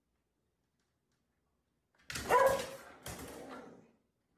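A small terrier barking twice in quick succession at the front door, the first bark the louder.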